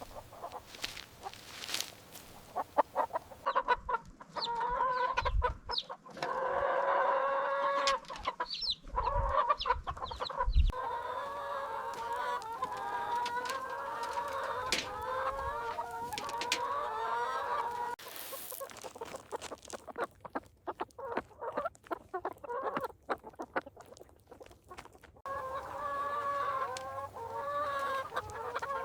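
Barred Plymouth Rock chickens clucking, with long wavering calls held for several seconds at a time and scattered short sharp clicks.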